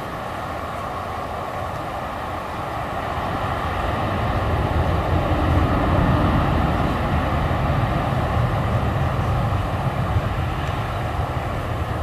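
Jet engines of a Boeing 737 airliner rolling out after landing: a steady rushing roar with a faint whine. A low rumble swells from about four seconds in as a car passes close by.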